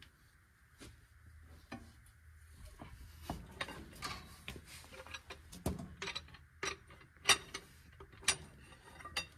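Irregular metallic clicks and clanks of a breaker bar and socket being worked on the wedge bolts of a Farmall Super M-TA's rear wheel hub as the bolts are loosened. The loudest is a sharp clank about seven seconds in.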